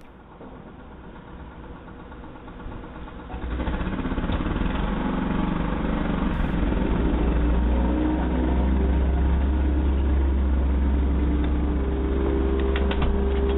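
A steady low mechanical rumble picked up by a doorbell camera's narrow-band microphone. It grows louder about three and a half seconds in, and a few faint clicks come near the end.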